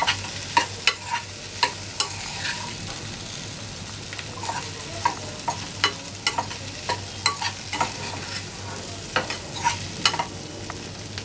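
A metal spoon scraping and knocking against a nonstick frying pan as boiled potato cubes are stirred through hot oil, with irregular clicks, often several close together. Under them the oil sizzles lightly.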